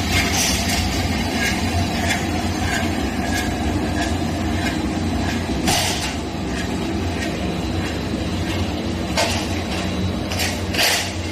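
Roll forming machine for drywall metal profile running: a steady motor hum with repeated light clicks, and a few louder knocks about halfway through and near the end.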